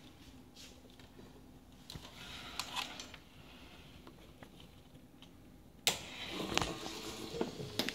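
Rustling and small clicks of wires being handled, then a sharp click about six seconds in, after which the Cimbali M2 Barsystem brew chamber's electric gear motor starts and runs with a steady mechanical whir.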